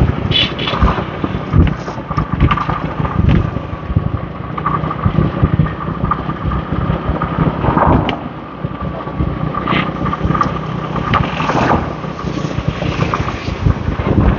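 Riding a motorbike in street traffic: wind buffets the microphone in irregular gusts over the steady running of the bike's engine, with a thin steady whine.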